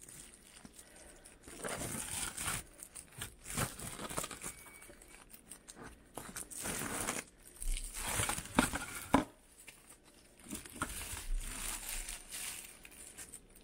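Thin plastic takeout bag crinkling and rustling in irregular bursts as fingers work at the knot tied around its neck, with a few sharper crackles about two-thirds of the way in.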